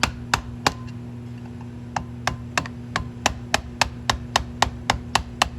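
Ratchet clicking in an even run of sharp clicks, about three to four a second, with a pause of about a second near the start. A steady low hum runs underneath.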